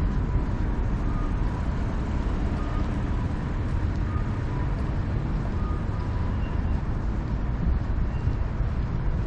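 Steady low rumble of busy city or station ambience, like vehicles or trains, with a faint two-tone electronic beep repeating about every second and a half.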